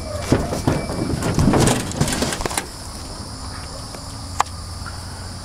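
A cluster of knocks and rustling for the first two seconds or so, then a single sharp click about four seconds in, over a steady high insect drone.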